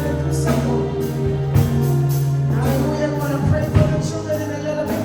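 Live gospel worship music: a band holding sustained bass notes under singing, with scattered percussion hits.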